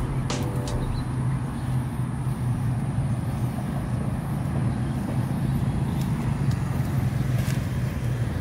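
Steady road traffic noise with a constant low engine hum underneath.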